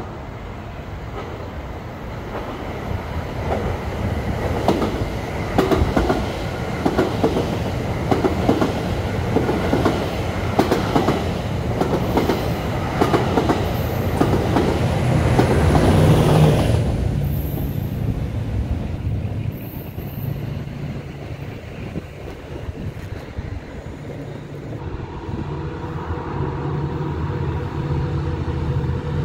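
EXO commuter train of bilevel coaches passing close by, its wheels clacking repeatedly over the rail joints under a rising rumble and a low engine drone, loudest about 16 seconds in, then dropping off suddenly a second later. In the last few seconds a second train's diesel engine drone builds as it approaches.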